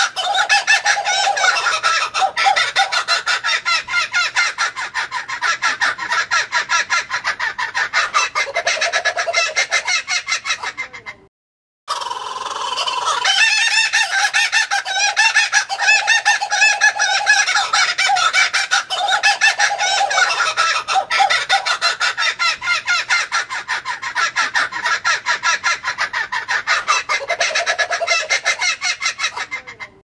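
Laughing kookaburras calling: long runs of rapid, rhythmic chuckling laughter, broken by a brief silence about eleven seconds in.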